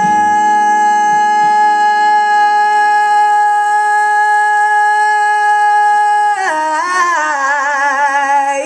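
A woman singing live into a microphone holds one long high note, with acoustic guitar strumming under it that dies away within the first couple of seconds. About six seconds in, the note breaks into a wavering run with wide vibrato.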